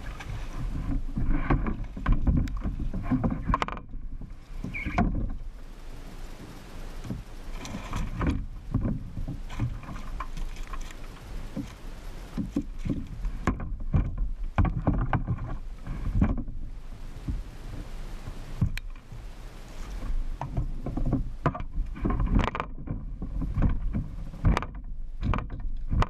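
Kayak on the water: irregular splashing, sloshing and knocks against the hull, coming in uneven bursts.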